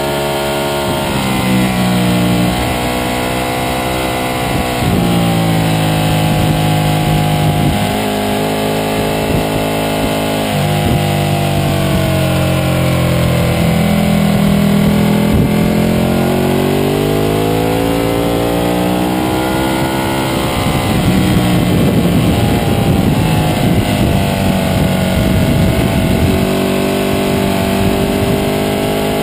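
Ducati 1199 Panigale's Superquadro V-twin engine heard from on board at speed on a track, the revs climbing under throttle and dropping off several times as the rider brakes and accelerates through the corners. Wind rush on the fairing runs beneath it.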